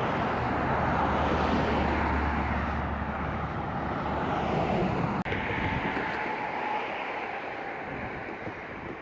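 Road traffic passing on a bridge: a vehicle's tyre and engine rumble is loudest in the first few seconds, then slowly fades, with wind buffeting the microphone.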